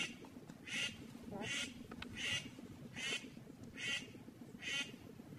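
A duck quacking repeatedly: about seven short, evenly spaced calls, one roughly every second, over a steady low background noise.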